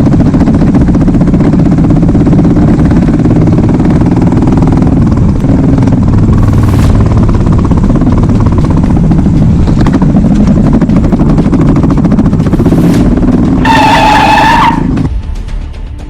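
A motor vehicle's engine running loudly and steadily, cutting off near the end. Just before it stops, a steady pitched tone sounds for about a second.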